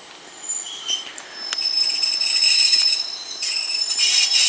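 GWR Class 150 diesel multiple unit's wheels and brakes squealing as it slows into the platform: a high-pitched metallic squeal of several steady tones that starts about half a second in and is loudest near the end.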